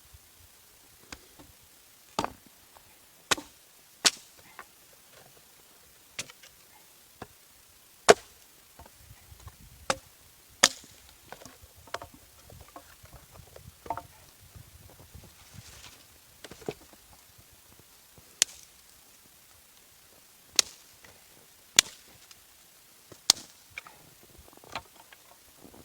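Wood being chopped for a campfire: about a dozen sharp, irregularly spaced blows.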